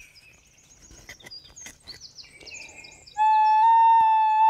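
Small birds chirping and a few light clicks, then about three seconds in a homemade end-blown flute sounds one long, steady high note.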